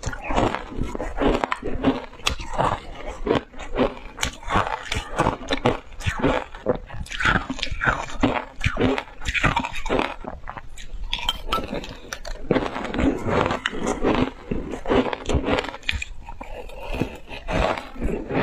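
Close-up crunching and chewing of mouthfuls of shaved ice coated in matcha powder: dense, rapid crackling crunches, with a metal spoon scraping and clinking in a glass mug.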